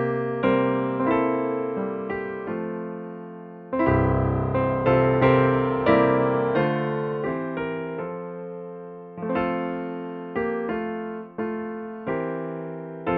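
Solo piano music: slow, gentle chords and melody notes, each struck note ringing and fading before the next, one every half second to a second or so.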